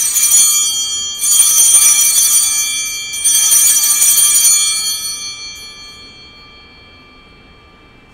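Altar bells (Sanctus bells) rung in three shakes about two seconds apart, a bright high jingling that rings on and fades out after the last shake. They mark the elevation of the host at the consecration.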